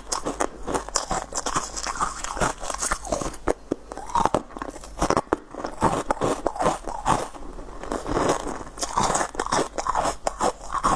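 A person biting and chewing hard pieces of moulded flavoured ice, with many sharp, irregular crunches.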